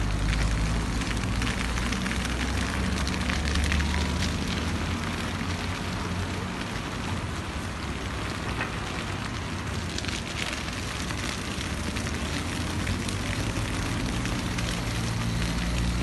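Dry grass fire crackling with a dense, irregular patter of small snaps, over a steady low rumble that is strongest at the start and near the end.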